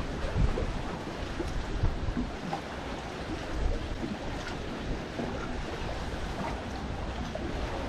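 Wind buffeting the microphone over lapping water, a steady rumbling outdoor noise with a few brief bumps.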